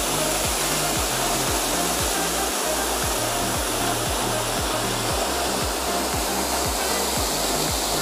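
Waterfall rushing steadily into a rock pool, a loud even roar of falling water. A background music track with a steady bass beat runs underneath.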